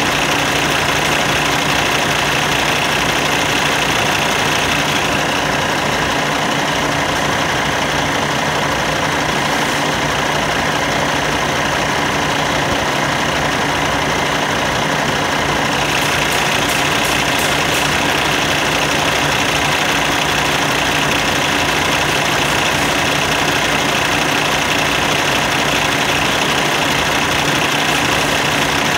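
2016 Cummins ISX15 inline-six diesel engine idling steadily at about 600 rpm.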